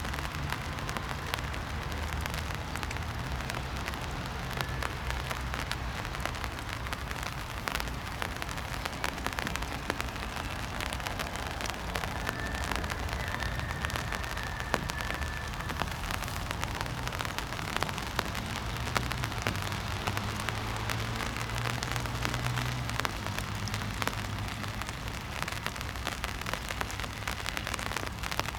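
Rain pattering: many small drop ticks over a steady hiss, with a low rumble underneath.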